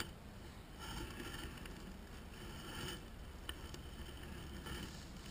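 Wind rumbling on the microphone, with the faint whirring of a fishing reel being cranked to retrieve a freshly cast lure, and a single sharp click about three and a half seconds in.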